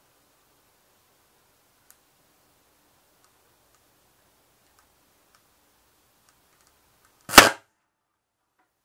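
A component on a smoking, overloaded audio power amplifier board blows with one loud bang about seven seconds in, after a few faint ticks as it overheats.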